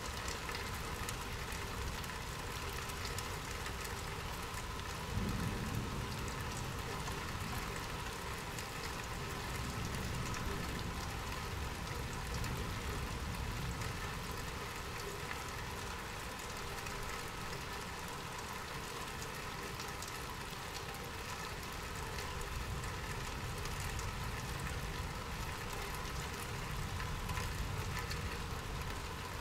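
Steady rain falling. A low rumble comes in suddenly about five seconds in and fades over several seconds, and another low rumble swells near the end.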